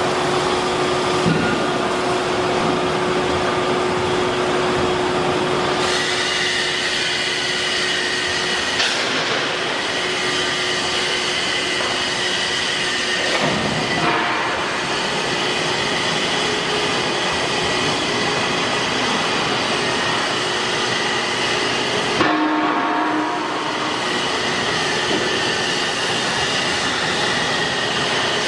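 CNC router's 9 kW HSD spindle running at high speed with its bit cutting a wooden board: a steady loud whine over a rushing cutting noise, the tone shifting a few times as the cut goes on.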